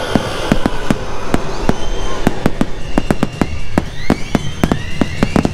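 Fireworks: a rapid string of sharp bangs from aerial shells bursting overhead, about four or five a second.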